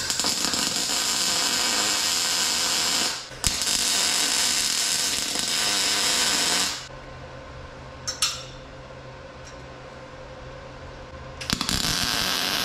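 MIG welder arc running in short welds: about three seconds of welding, a brief break, another run of about three seconds, a quick blip about eight seconds in, and a new weld starting near the end.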